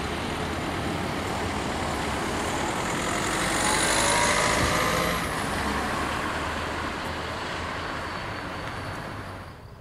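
A car driving past close by, its engine and tyre noise swelling to a peak about four seconds in with a faint rising-then-falling whine, then fading, over a steady rumble. The sound cuts off suddenly near the end.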